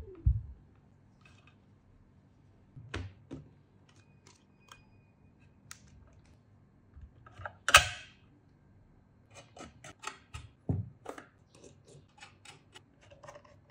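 Irregular clicks and knocks of hard keyboard parts being handled and fitted together, with one louder clatter about eight seconds in and a few dull thumps.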